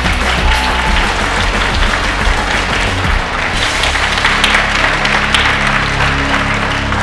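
Audience applauding, a dense steady clapping, over background music with sustained low notes.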